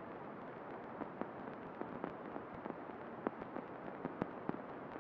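Faint steady hiss with scattered crackling clicks, a few a second at irregular spacing.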